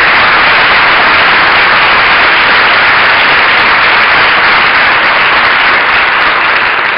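Audience applauding, loud and steady, easing off near the end.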